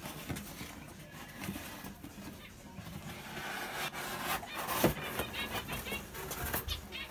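A cardboard box being handled and opened, rustling, with one sharp knock about five seconds in. Small birds chirp rapidly in the middle.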